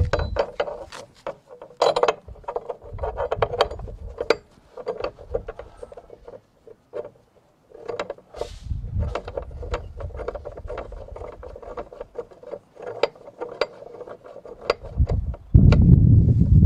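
Steel bow shackles and their screw pins clinking and tapping against the oven's metal lifting brackets as they are fitted and tightened by hand, a busy run of sharp metallic clicks. A low rumble comes in near the end.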